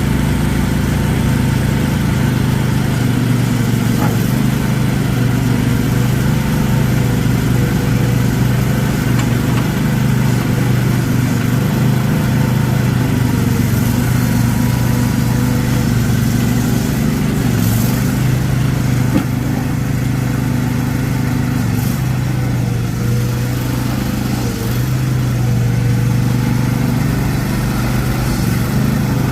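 The R825 gasoline engine of a CFG MX50R mini excavator running steadily at an even speed.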